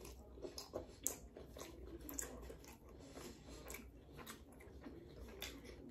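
Faint, close-miked chewing of a beef-and-cheese sandwich on a soft hero roll, mouth closed, with small irregular mouth clicks.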